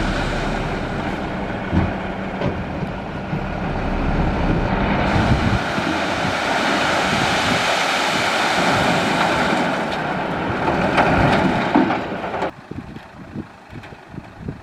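Heavy dump truck running, with a loud rushing hiss of gravel pouring out of the tipped bed. The hiss cuts off suddenly near the end.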